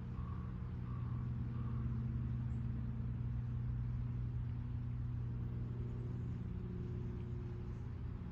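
The low, steady drone of an engine running, its pitch shifting slightly about five seconds in. A few faint, evenly spaced beeps sound in the first two seconds.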